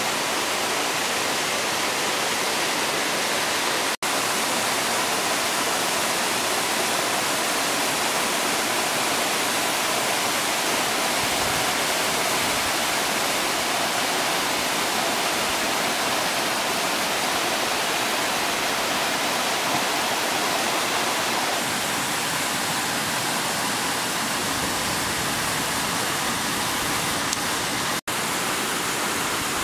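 Steady rushing of a waterfall, cutting out for an instant twice, about four seconds in and near the end.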